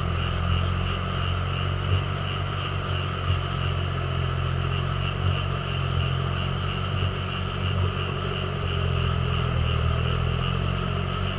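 Compact tractor engine running steadily under load as it pulls a rear rotary tiller through a flooded rice paddy.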